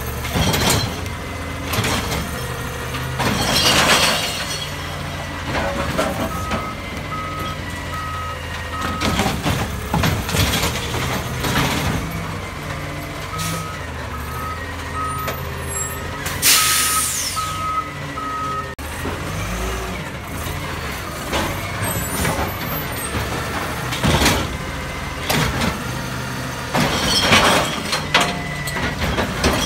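Bridgeport split-body automated side-loader garbage truck running while working carts, with clanks and knocks from the arm and carts. A warning beeper sounds about twice a second in two spells, and a loud air hiss comes about halfway through.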